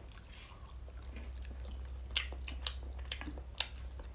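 A person eating noodles close to the microphone: chewing with several sharp, wet mouth clicks over a low steady hum.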